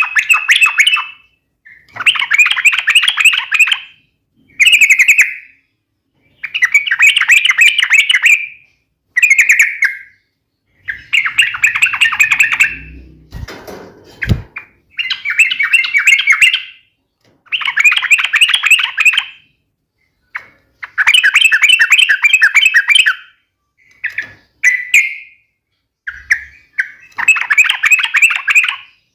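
Yellow-vented bulbul singing its loud, rapid 'fighting' song: quick chattering phrases of one to two seconds each, repeated about a dozen times with short pauses between. This is the sharp, aggressive song used to provoke other bulbuls into answering.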